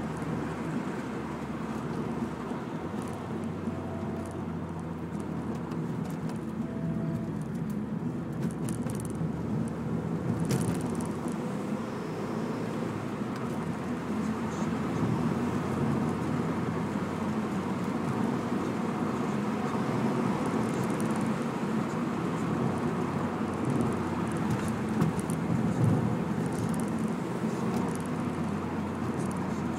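Renault Mégane RS 225's 2.0-litre turbocharged four-cylinder and the road noise of the car climbing a winding road, running steadily and getting a little louder about halfway through. A few faint clicks come about a third of the way in.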